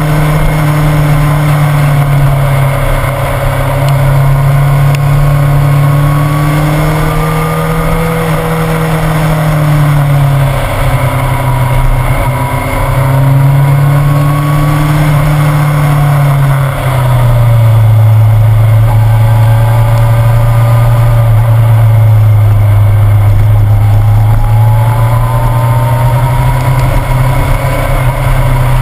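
Motorcycle engine heard close up from the bike, running steadily while riding, its note shifting down and back up with throttle through the bends, then settling on a lower, slightly louder note about two-thirds of the way through.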